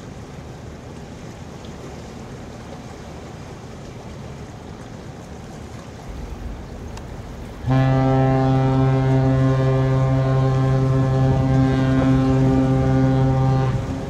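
Wind and water noise, then about eight seconds in a ship's horn sounds one long, deep, steady blast lasting about six seconds before cutting off.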